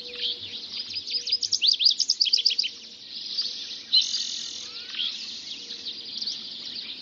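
Dawn chorus: many songbirds singing at once, overlapping chirps, trills and quick whistled glides, with a burst of rapid notes about one to three seconds in.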